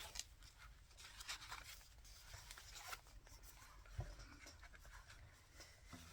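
Faint rustling and light tapping of paper pages being handled, as a folded signature is opened to find its middle, with a soft low thump about four seconds in.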